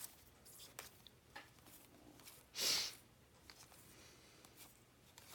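Quiet handling of trading cards, with faint light ticks as the cards are moved. About two and a half seconds in there is one short rushing swish.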